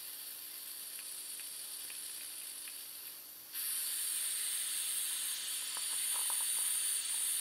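Butane hissing steadily as a can's nozzle is pushed down into the fill valve of a Weller WLBU75 butane soldering iron, refilling its gas tank. The hiss gets louder a little past halfway.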